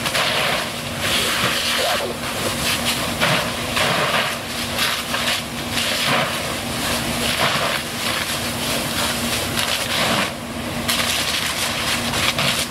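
A loud, uneven rushing hiss over a constant low engine hum, typical of the noise at a working fire scene.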